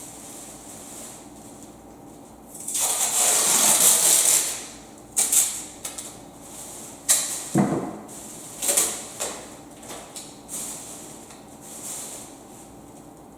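Handling noises: a scraping rush lasting about two seconds, then a series of sharp knocks and clunks, one of them a deeper thud.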